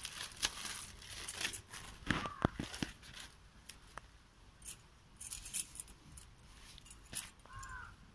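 Dry, charred leaf wrapping crackling, crinkling and tearing as hands peel it off a coal-baked poda pitha, in sharp irregular snaps.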